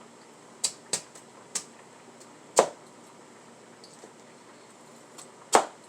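A kitchen knife knocking on a cutting board as sweet potato is cut into small pieces, five uneven strikes with long gaps between them; the loudest come about two and a half seconds in and near the end.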